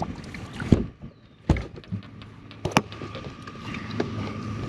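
Three sharp thumps, as of gear knocking against a fishing boat, then a steady low hum with a faint whine from about two seconds in.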